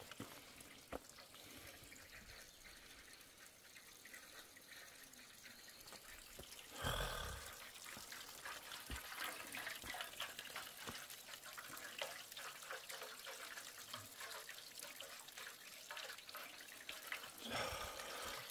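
Faint trickling of running water, a thin irregular patter of drips, with one short louder sound about seven seconds in.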